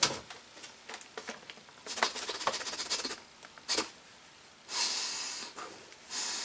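Clear plastic blister packaging crinkling and crackling as it is pulled open, then a long sniff of about a second, two-thirds of the way through.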